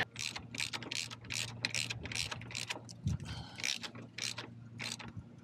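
Ratcheting torque wrench clicking in quick, slightly uneven ticks, several a second, as a bolt on a motorcycle's mid-control foot-peg mount is run down and torqued.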